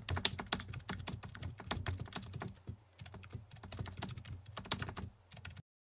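Keyboard typing sound effect: rapid, irregular key clicks, with a brief pause about halfway, then a sudden stop near the end.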